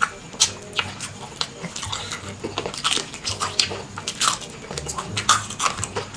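Close-miked biting and chewing of crispy fried chicken: irregular sharp crunches of the coating, a few a second.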